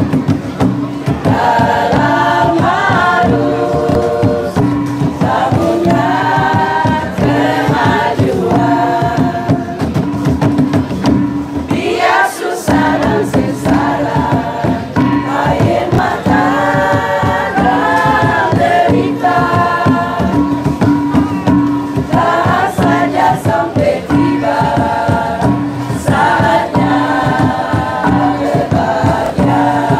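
A choir singing a Moluccan song together over tifa drums beating a steady rhythm; the drums drop out for a moment about twelve seconds in.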